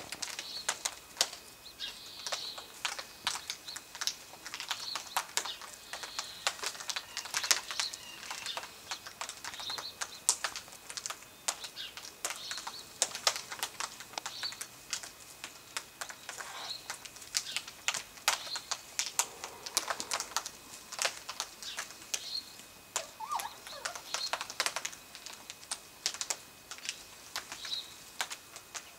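Yellow-tailed black cockatoos feeding in a tree: a dense, irregular run of sharp cracks and snaps as they chew and tear at seed pods and twigs, with faint short chirps now and then.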